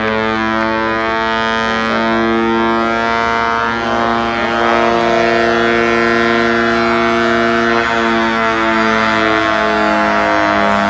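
Air-raid siren sounding a loud, steady, chord-like wail that holds its pitch with only slight shifts.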